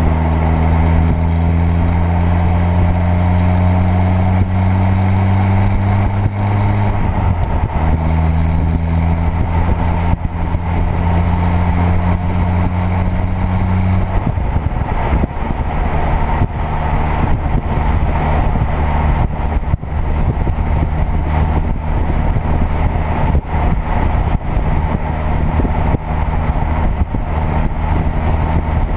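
2.0 TFSI turbocharged four-cylinder car engine pulling gently, its note rising slowly in one gear. The note drops at a gear change about seven seconds in, then rises again. After about fourteen seconds it turns into a rougher, uneven rumble with short sharp ticks.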